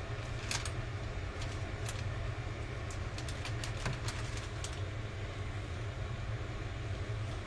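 A steady low hum of kitchen background noise, with a few light clicks and taps scattered through it.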